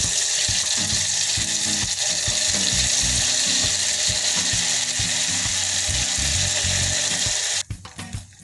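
Egg-batter chips deep-frying in hot oil, a loud steady sizzle that cuts off abruptly near the end. Background music with a beat plays underneath.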